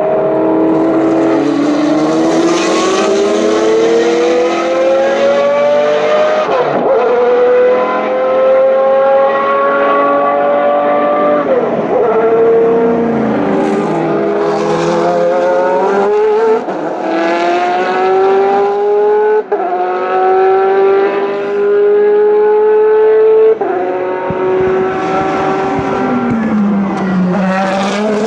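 Race car engines accelerating hard through the gears, several cars together: the pitch climbs steadily and drops sharply at each upshift, about five times over.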